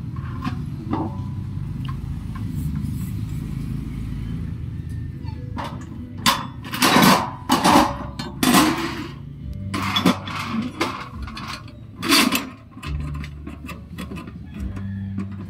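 Metal satellite-dish mount parts clinking and knocking as they are handled and fitted together: several sharp knocks in the second half, over a low steady hum.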